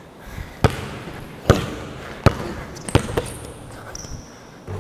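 Basketball dribbled on a hardwood gym floor: four sharp bounces about three-quarters of a second apart, each ringing briefly in the gym.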